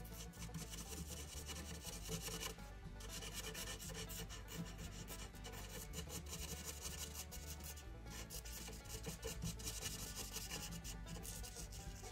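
Felt-tip marker scratching and rubbing across paper in quick back-and-forth strokes while colouring in, with brief pauses between runs of strokes.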